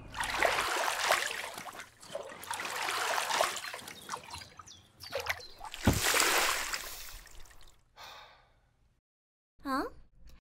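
Feet wading and splashing through shallow floodwater, in three long bursts of sloshing. A short pitched cry that glides in pitch comes near the end.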